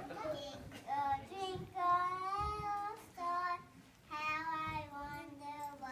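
Young children singing together, holding long notes in phrases broken by short pauses.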